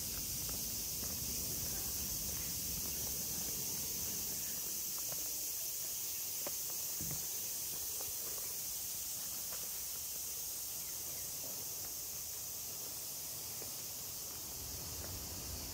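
Steady high-pitched insect chorus, an unbroken shrill hiss with no rise or fall, with a few faint ticks.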